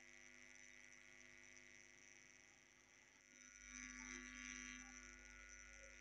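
Near silence: a faint steady hum, with a faint low rumble rising briefly in the middle.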